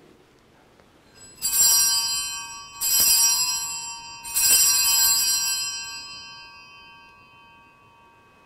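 Altar bells (Sanctus bells) rung three times, about a second and a half apart, each peal ringing on and fading away: the signal marking the elevation of the consecrated host at Mass.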